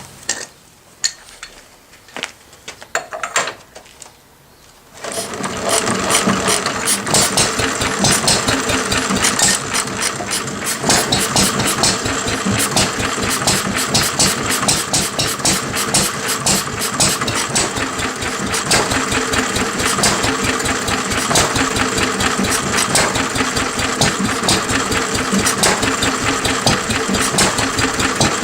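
1937 Lister D 2 hp single-cylinder stationary engine on its first run after a rebuild: a few scattered clicks and knocks, then about five seconds in it starts and runs steadily with a fast, even beat.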